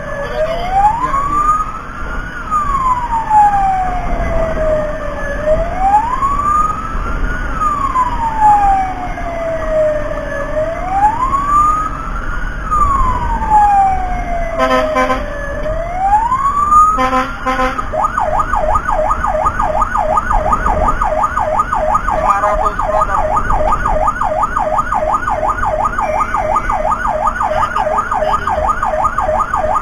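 Emergency-vehicle siren, likely the fire-rescue truck's, sounding a slow wail that rises and falls about every four seconds, then switching about eighteen seconds in to a fast yelp. Two short blasts come just before the switch, over a low engine rumble.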